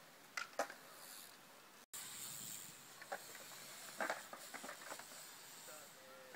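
Faint BMX bike riding in a concrete bowl: tyres hissing on the concrete with a few light knocks and clicks, a cluster of them about four seconds in as the bike hits the coping.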